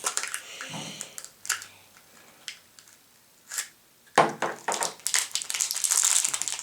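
Wrapper and packaging of a chocolate surprise egg crinkling and tearing as it is opened by hand: scattered crackles, a near-quiet pause with a few single clicks, then dense crinkling from about four seconds in.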